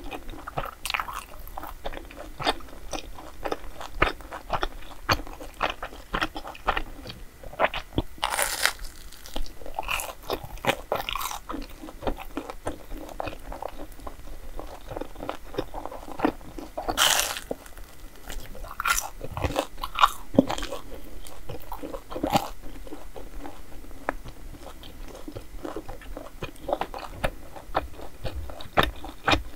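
A person biting and chewing crunchy food: Korean street desserts (hotteok and grilled rice cake). There are many small crackling chews, with two louder crunches about eight seconds in and again about seventeen seconds in.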